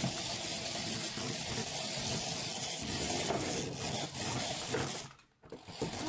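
Remote-control poop toy running with a continuous hissing rasp that cuts off about five seconds in.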